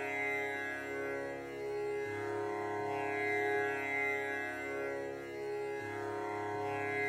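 Slow instrumental background music of long held, droning tones, its low note changing about two seconds in and again near the end.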